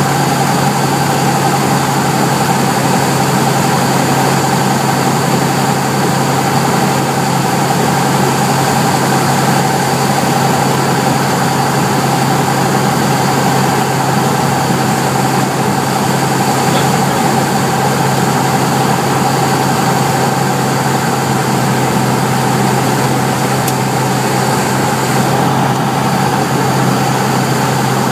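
Cessna 172B's Continental O-300 six-cylinder engine and propeller droning steadily, heard from inside the cabin on final approach.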